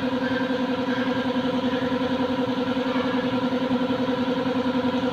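A motor running steadily at an even pace: a constant hum with a fast, regular pulse.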